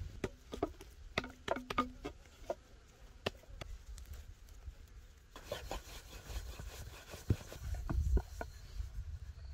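A rolling pin rolling dough out on a wooden board: scattered light knocks of dough and tools handled on the board at first, then from about halfway a steady rubbing as the pin rolls back and forth, with knocks as it moves.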